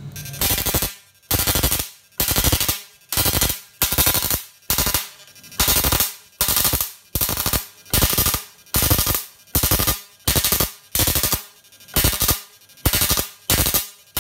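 Homemade 12 V IGBT electric fishing machine's output leads arcing as they are struck together, a loud series of crackling spark bursts at about two a second, each under half a second long. This is a firing test of the machine's output, with the sparks showing the output is live.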